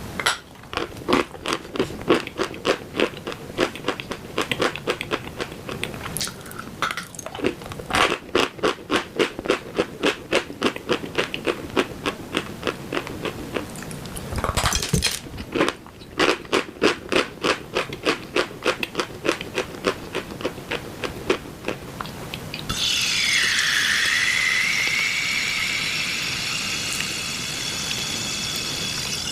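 Dry chalk being chewed close to the microphone: quick, rhythmic crunches, a couple to a few per second, with a louder crunch about halfway through. For the last several seconds the chewing gives way to a steadier, louder sound with a tone that dips and rises.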